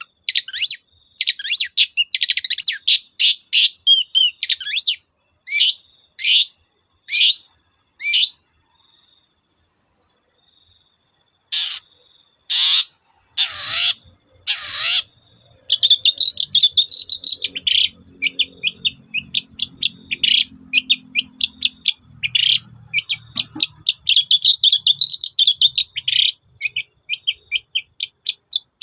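Long-tailed shrike (cendet) singing vigorously: quick chattering phrases of varied high notes, a pause, a few loud harsh notes, then a dense, fast run of song.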